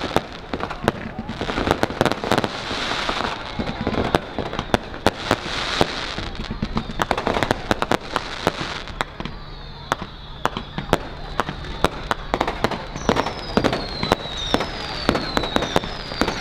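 Fireworks going off in quick, irregular succession: many sharp bangs and crackles. Near the end, a run of falling whistles repeats about once a second.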